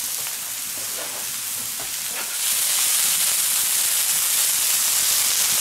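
Minced-meat patties frying on a steel fire-plate griddle: a steady sizzling hiss that grows louder about two and a half seconds in.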